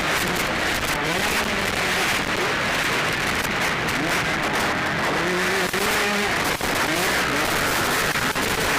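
Motocross bikes' engines revving up and down as they race past, under a loud steady hiss.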